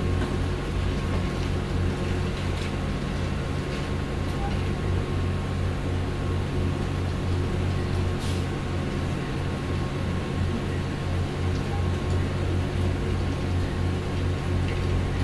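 A steady low hum with a faint, thin steady tone above it, holding level throughout, with a couple of faint clicks.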